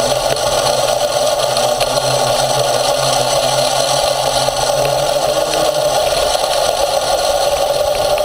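Motorized off-road skate riding over a dirt trail: its motor runs steadily, with noise from the wheels and frame on the rough ground.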